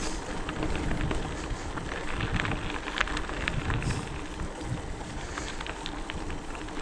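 Hardtail e-mountain bike rolling over a forest trail: steady tyre noise and low rumble with many small clicks, crackles and rattles from the ground and the bike.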